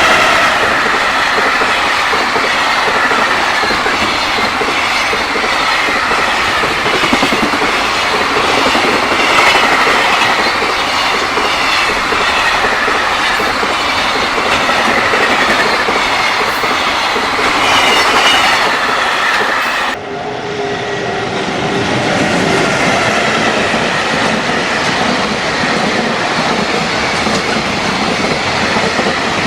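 A freight train passing close by, its wheels clattering over the rail joints in a loud, continuous rumble. About twenty seconds in the sound breaks off abruptly, and passing-train noise carries on in a slightly different tone.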